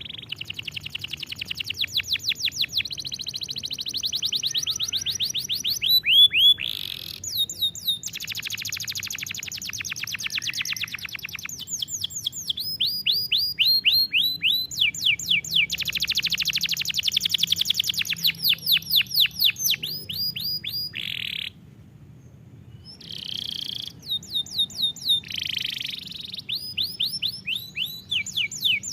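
Domestic canary singing a long, varied song of fast repeated trills and rolls and runs of quick downward-sweeping notes, with a short pause a little after twenty seconds in.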